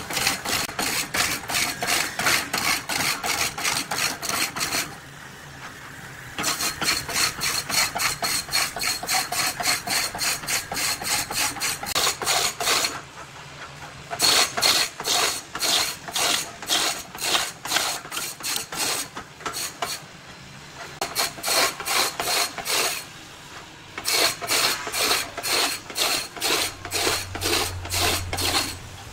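A hand tool rasping on wood in fast back-and-forth strokes, about five a second, stopping briefly three times.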